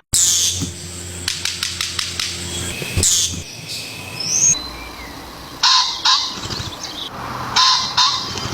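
Bird calls: a run of quick clicks, then several short, harsh calls, with abrupt cuts between pieces of sound.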